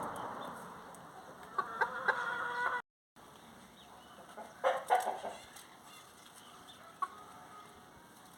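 Chickens clucking and calling over a low hiss that fades in the first second. There is a held, pitched call at about two seconds and a few louder, sharper calls around five seconds in. The sound cuts out completely for a moment just before three seconds.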